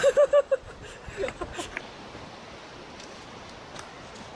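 A person's voice in four quick pulses for about half a second at the start, then steady outdoor background noise with a few faint scuffs.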